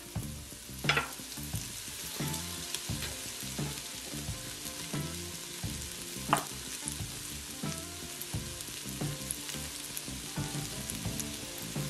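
Diced onions and garlic sizzling steadily in olive oil in an 8-quart Instant Pot's stainless inner pot on the sauté setting. Two brief clicks, about a second in and a little past the middle.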